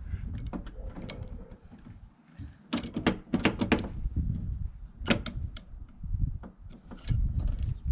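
Irregular metallic clicks and knocks of a spanner working loose the bolt that holds a bus windscreen wiper arm, with a cluster of sharp clicks about three seconds in and another about five seconds in.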